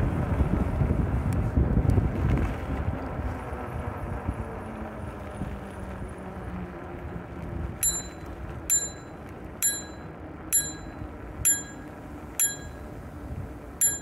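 A bicycle bell rung seven times, about once a second, each a short bright ding that dies away quickly. Wind buffeting the microphone is loud in the first few seconds, then fades.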